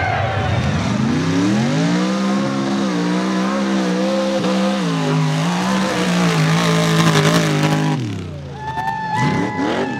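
Mud truck engine revving hard as it charges through the mud pit. Its pitch climbs steeply in the first two seconds and then holds at high revs, wavering, before dropping off about eight seconds in. After that a different, higher engine whine rises and falls briefly.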